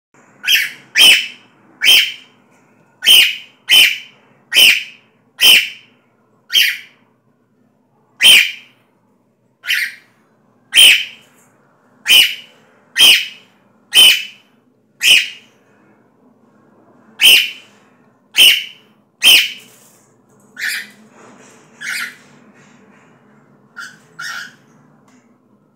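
Cockatiel calling: a string of about twenty short, loud, high-pitched calls, roughly one a second, with a brief pause midway and the last few calls softer.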